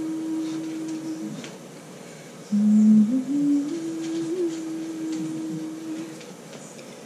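A woman humming a slow tune in long held notes to calm a cat. The humming breaks off just over a second in, resumes on a lower, louder note, then steps back up.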